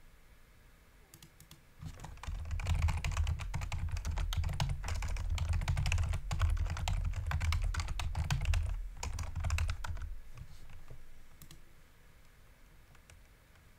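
Computer keyboard being typed on in a quick, continuous run of keystrokes. It starts about two seconds in and dies away around ten seconds, with a low thud under the key clicks.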